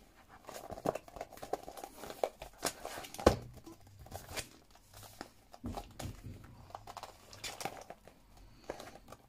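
Hands handling a handmade traveler's notebook: paper and cover crinkling and rustling, with scattered light taps and a sharper knock about three seconds in.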